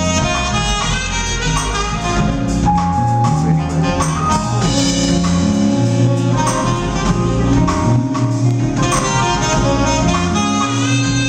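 Live smooth-jazz band playing: a tenor saxophone lead over electric guitar and a drum kit.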